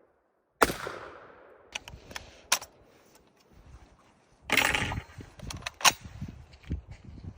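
A single sharp gunshot about half a second in that rings out and fades over about a second, followed by scattered clicks and knocks and a short noisy burst about four and a half seconds in.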